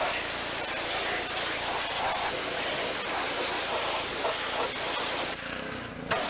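Power washer spraying water in a steady hiss, wetting down the truck before cleaning. Near the end the spray drops away for about half a second, then comes back with a sudden burst.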